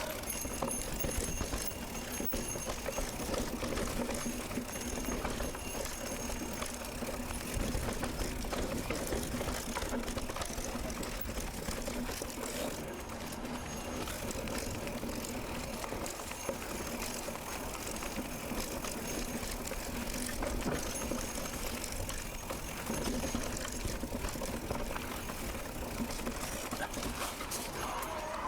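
Riding noise from a mountain bike on a forest road: steady wind buffeting the microphone with a low rumble, and tyre noise underneath.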